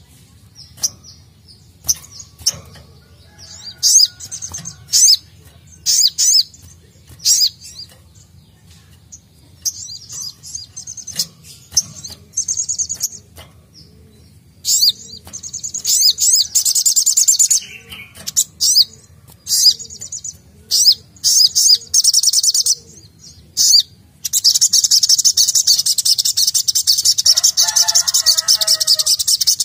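Male olive-backed sunbird (sogok ontong) singing: scattered sharp, high chirps at first, then a few bursts of fast trilling after the middle, and a long, unbroken fast trill over the last five seconds or so.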